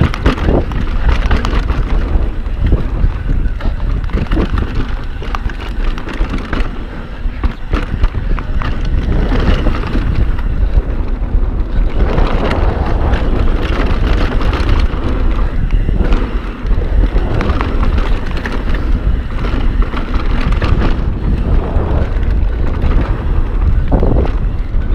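Mountain bike riding fast down a dirt trail: wind buffeting the GoPro's microphone, tyres on dirt, and the bike rattling and knocking over bumps, the knocks coming in quick irregular runs.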